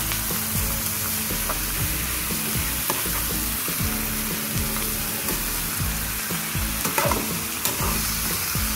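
Pork belly pieces sizzling in a hot frying pan with onion, garlic and green chillies while being stirred, a steady frying hiss. A few sharp clicks, the loudest about seven seconds in.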